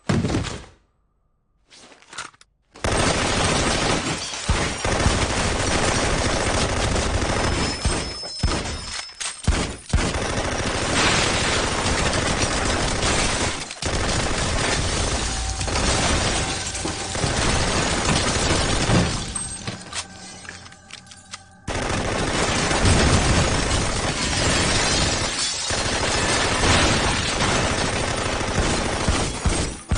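After a couple of seconds of near silence, sustained heavy gunfire breaks out: rapid automatic fire and pistol shots, with bullets striking concrete and glass shattering. The firing eases briefly about two-thirds of the way through, then resumes at full intensity.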